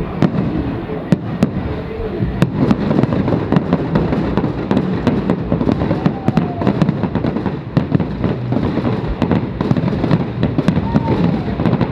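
Fireworks display: a dense, continuous barrage of bangs and crackles from bursting aerial shells, with many sharp cracks over a steady rumble.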